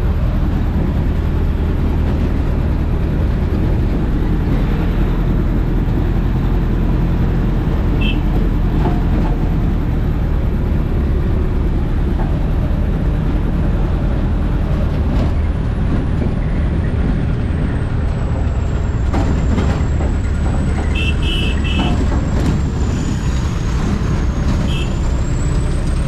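Off-road vehicle's engine and tyres heard from inside the cabin while driving: a loud, steady low drone. A few short high-pitched beeps come through about a third of the way in and again near the end.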